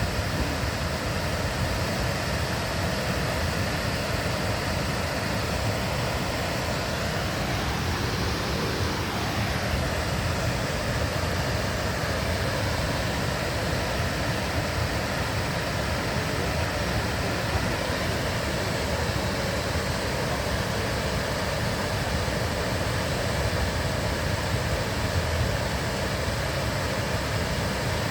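Ganja River flowing: a steady rushing of water. A faint tone rises and falls briefly about eight seconds in.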